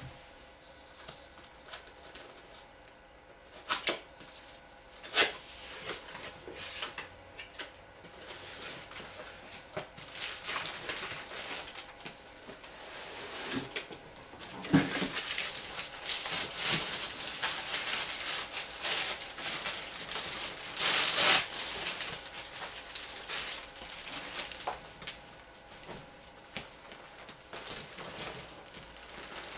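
Unboxing handling noise: a cardboard box being handled and opened, with sharp knocks about four and five seconds in, then a plastic bag crinkling and a folded vinyl pool float rustling as it is unwrapped and spread out, loudest about 21 seconds in.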